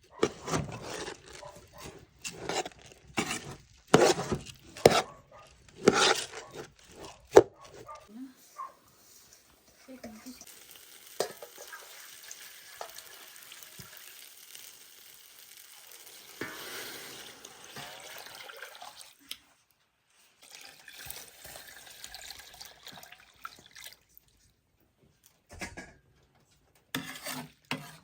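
Cooking at a pot: a quick run of knocks and scrapes of a utensil, then a steady hiss lasting several seconds, with more knocks near the end.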